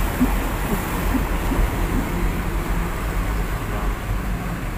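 A vehicle running, heard from inside its cab as a steady low rumble, with a continuous hiss of water from the flooded road over it.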